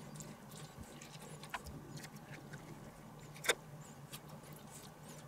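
Quiet kitchen handling sounds of tomatoes being hollowed out by hand on a wooden cutting board: faint soft clicks and taps, with one sharper click about three and a half seconds in as a knife is laid down on the board.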